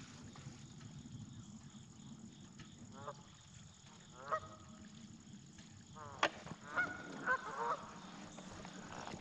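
Geese honking: a few short, separate calls spread through the middle and later part, over a faint steady hiss, with one sharp click about six seconds in.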